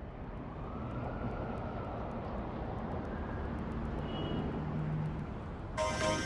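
A dense rushing, rumbling noise that builds up steadily, then pop music with a beat starts abruptly near the end.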